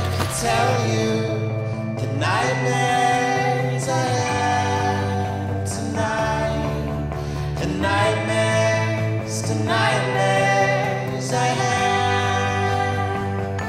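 Background music: a song with singing over low bass notes that change about every two seconds.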